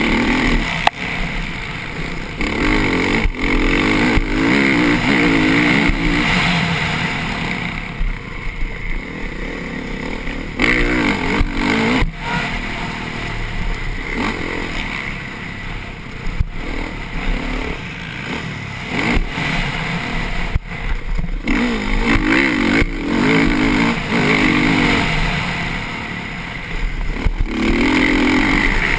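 Motocross bike engine ridden hard on a dirt track, revving up and backing off over and over as the rider works the throttle, with short cuts in power about a quarter, a third and two-thirds of the way through, heard up close from the bike itself.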